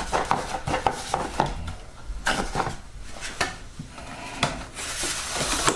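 Light clicks, taps and rattles of a part being fitted back by hand onto a foam RC model airplane, with a louder rustling scrape near the end.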